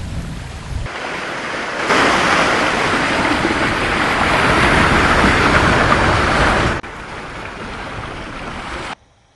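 Water rushing and splashing with wind buffeting the microphone, as from a small sailboat under way. The noise changes suddenly about a second in, grows louder at about two seconds, drops near seven seconds and falls away almost to nothing just before the end.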